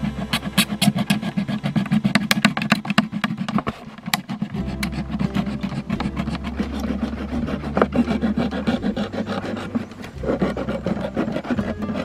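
Kitchen knife sawing into the side of a large plastic water bottle in quick repeated strokes, over background music with a steady bass line.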